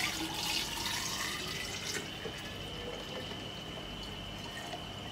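Salt brine pouring from a stainless steel pot into a glass jar of raw chicken eggs, splashing and trickling as the jar fills, loudest in the first two seconds and then a softer stream, the brining step of making salted eggs.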